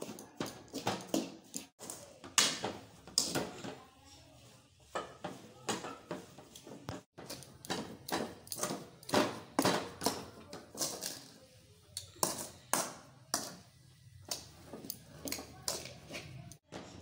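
Metal spoon scraping and knocking against a metal kadhai while stirring grated coconut: irregular scrapes and clinks, about one or two a second.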